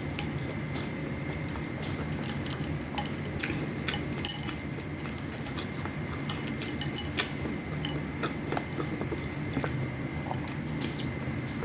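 Spoon and fork clicking and scraping against a plate while eating, many small sharp clicks at irregular intervals over a steady low hum.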